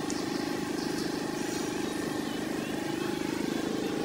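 A steady, low, fast-pulsing drone of an engine running, unchanging throughout.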